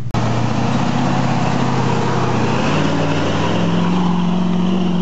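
Chevy 350 small-block V8 in an off-road Jeep working hard under load on a muddy climb, its pitch rising as it revs up about three and a half seconds in.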